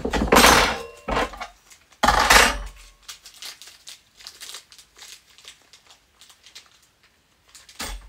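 Hands handling parts and packaging: a few loud crinkling, rustling bursts in the first three seconds, then scattered light clicks and taps, and another short rustle near the end.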